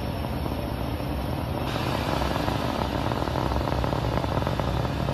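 Roar of a Falcon 9 rocket's nine Merlin 1D engines during ascent: a steady low rumble that grows brighter and a little louder about two seconds in, with a crackling edge.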